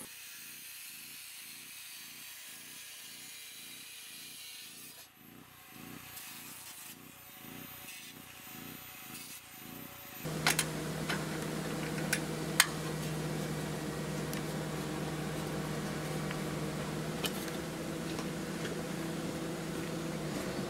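Angle grinder working a galvanized steel sheet, turned down low. About ten seconds in the sound changes abruptly to a louder steady machine hum, with several sharp clicks and taps.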